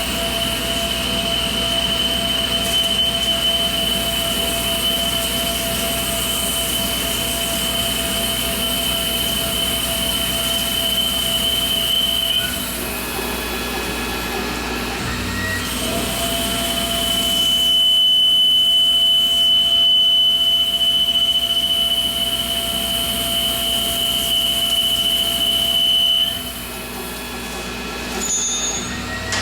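Tormach Slant-Pro CNC lathe running a turning cut on a steel cone, with a steady high whine from the spindle drive over the machining noise. The whine drops out for a few seconds about halfway through and stops again near the end, and the sound is loudest in between.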